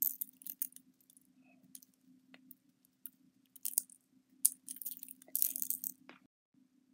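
Tiny sprinkles shaken out of a small glass vial onto sequin-and-bead covered slime: short, crisp rattling bursts, several times at uneven intervals, over a faint steady low hum that cuts out near the end.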